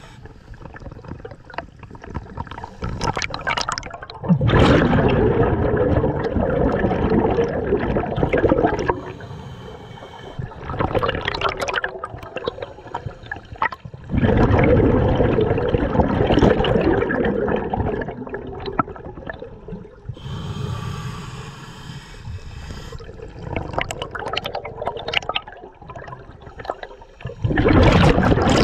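A scuba diver breathing through a regulator underwater: exhaled bubbles rush out in loud bursts of two to four seconds, with quieter inhaling between them, over several breaths.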